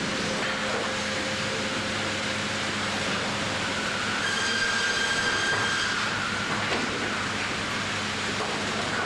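Machinery of an AKE sawmill bandsaw line running with a steady rumbling clatter and hum. A high whine comes in for about two seconds midway, then drops away.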